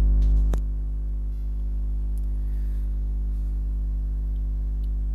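Steady electrical mains hum with a stack of overtones, and a short click about half a second in.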